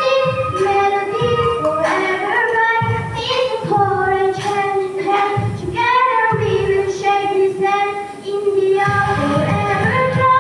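Children singing a song over musical accompaniment with a steady low beat, the music dipping briefly about eight seconds in before carrying on.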